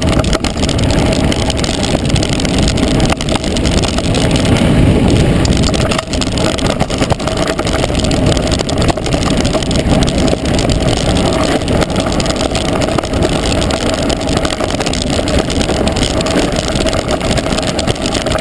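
Mountain bike descending a rough dirt and gravel track at speed: a steady rush of wind on the camera's microphone, with a constant rattle and clatter of tyres and frame over loose stones.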